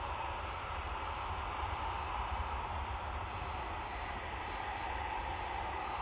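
Distant jet airliner engine noise: a steady rushing hiss with a low rumble beneath and a thin, steady high whine over it.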